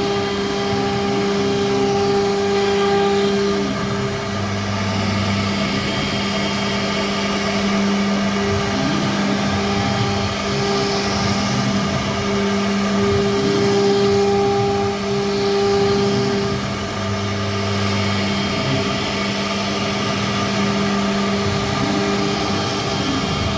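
CNC router running steadily with a continuous machine hum whose pitch wavers slightly now and then, as when it is cutting a board.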